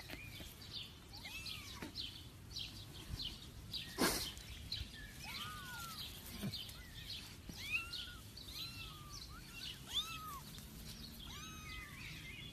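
Several young kittens mewing over and over, short high mews that rise and fall, one after another. A single sharp knock about four seconds in.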